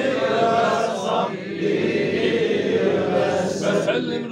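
A group of men chanting together in unison, a Sufi devotional chant, with a short break about a second in.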